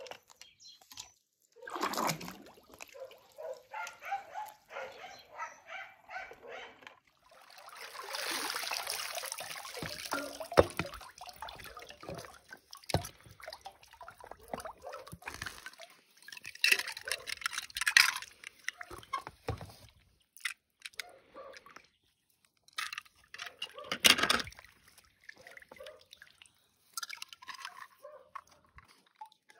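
Water running and dripping off a wet pool skimmer net, with a rushing spell a few seconds in, and die-cast toy cars clicking and knocking against each other as they are picked out of the net.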